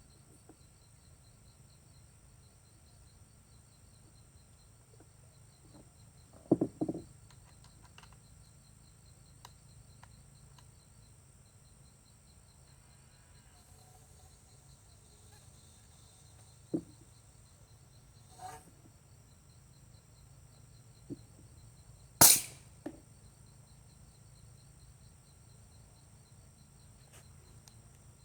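Steady high insect chirring in the background, broken by a few short sharp clicks and knocks from handling the PVC solenoid air cannon while it is being aired up. The loudest knock comes about three quarters of the way through.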